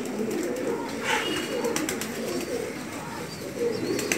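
Domestic pigeons cooing, several low coos overlapping without a break.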